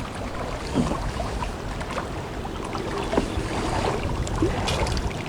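Wind and choppy water: a steady rushing noise with a few faint small ticks.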